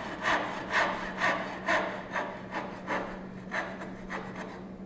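Crosscut-toothed back saw sawing across the grain of a board to cut off the half-pin waste of a dovetail, in even strokes about two a second that grow fainter and stop near the end.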